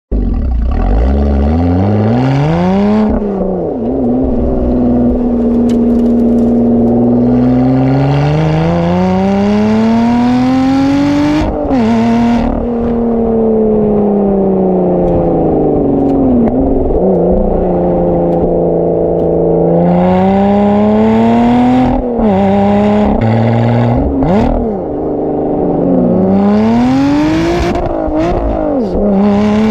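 Lotus Evora GT's supercharged Toyota-derived 3.5-litre V6 engine and exhaust, revving up and dropping back again and again, with stretches held at steady revs in between.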